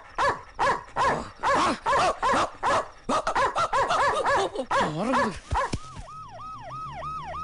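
A large dog barking rapidly over and over. About six seconds in, a siren starts, wailing quickly up and down in a steady yelp.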